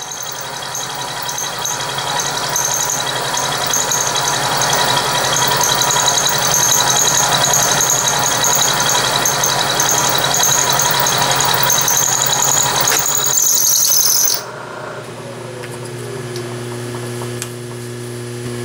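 End mill cutting metal in a vertical milling machine: a loud steady cutting noise with a high, wavering squeal. About fourteen seconds in the cut ends, and only the machine's steady running hum remains.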